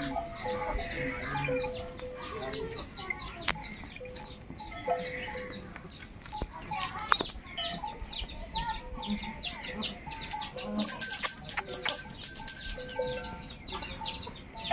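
Chickens clucking and calling in a poultry yard, with many short, high, falling chirps throughout and a few sharp clicks.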